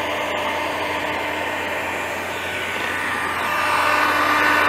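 A Stanley 2000-watt heat gun running steadily, its fan blowing hot air to dry a wet-sanded tabletop; it grows a little louder in the last second or so.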